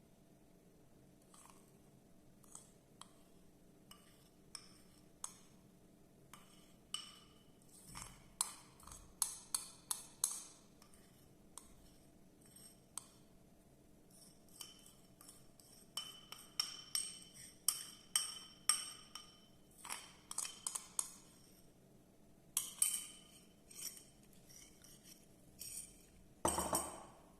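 Kitchen utensils and glassware clinking irregularly, sometimes in quick runs, as ingredients are handled in glass containers, with a duller knock near the end.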